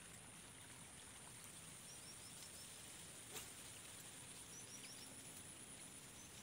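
Faint outdoor wildlife ambience: a steady high-pitched insect drone with runs of four or five quick, high, falling chirps every couple of seconds, and a single sharp click about three and a half seconds in.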